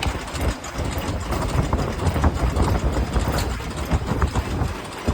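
Double-sided stator lacing machine running: a steady low mechanical rumble with scattered irregular clicks and knocks.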